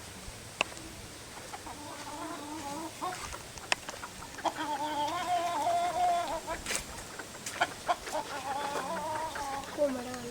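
Laughing dove giving its soft, bubbling call in three wavering phrases, with a few short sharp clicks in between.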